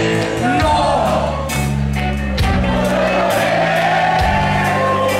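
Live rock band playing loudly, with a lead singer's voice over electric guitar, bass and drums.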